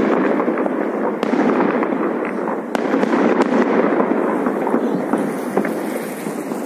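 Many fireworks and firecrackers going off at once in a dense, continuous crackle, with a few sharper bangs standing out from it.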